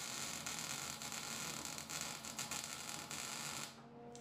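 Electric arc welding on a steel exhaust pipe: a steady crackling hiss with a faint buzz, cutting off near the end as the arc is broken.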